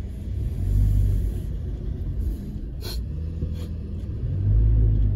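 Low engine and tyre rumble inside the cabin of an off-road vehicle driving over desert sand. It swells twice, about a second in and again near the end. A short sharp click comes about three seconds in.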